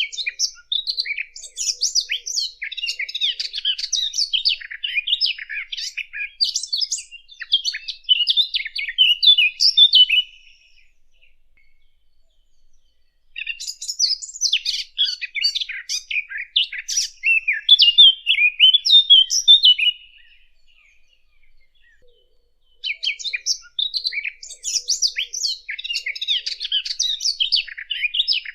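A Sylvia warbler (the 'fig bird' of Levantine bird-catchers) singing long phrases of rapid, varied warbling, three phrases of about 7 to 10 seconds each with pauses of about three seconds between them. It is a clean recording of the kind used as a hunting lure.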